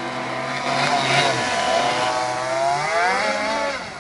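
Two-stroke petrol engine of an RC race boat running at speed, a high engine note whose pitch climbs and then drops away near the end.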